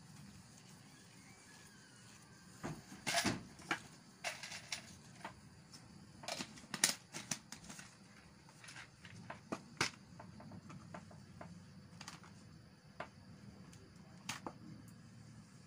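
Irregular small clicks and ticks of Cat6 cable wires being straightened and arranged by hand, over a faint low hum.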